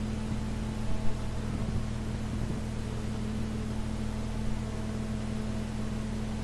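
Steady electrical hum and hiss of an old recording's background noise, with a brief faint knock about a second in.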